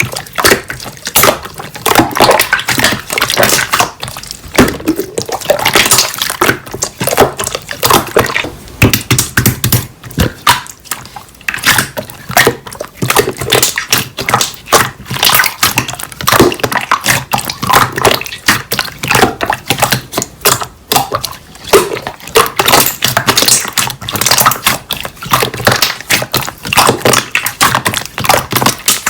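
Slime being squeezed and poked by hand, giving a dense, irregular run of sticky pops and crackles.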